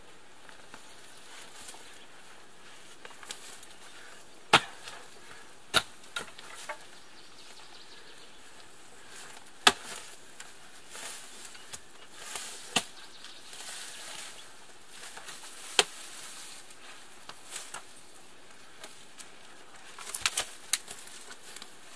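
A digging tool striking hard, frozen ground: sharp strikes a few seconds apart, with a quick run of three near the end.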